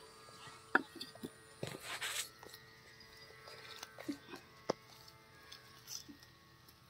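A raw whole chicken being handled on a wooden chopping block: scattered wet squelches and light knocks, with a few sharp clicks and a short rustling noise about two seconds in.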